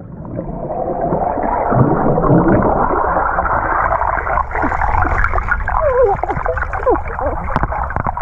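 Muffled underwater sound in a swimming pool, heard from a camera under the water: a rush of bubbles and churning water as a child swims past. A few short squeaky glides come about six to seven seconds in.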